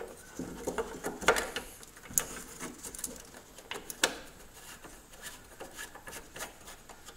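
Hard plastic clicking, tapping and rubbing as the round Victron BMV-712 battery-monitor display is pressed and turned into its plastic mounting box. A few sharp clicks stand out, about a second in, near two seconds and near four seconds, with lighter scraping between them.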